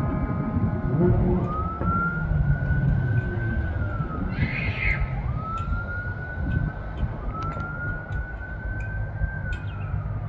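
Fire apparatus siren wailing in slow cycles, each rising for two to three seconds and then dropping, with a horn blast during the first second and a steady low rumble of the truck and traffic underneath.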